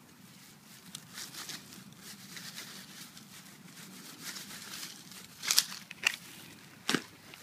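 Rustling and scraping of a gloved hand digging through dry grass, roots and loose soil in a dig hole, with a few sharp knocks in the last couple of seconds.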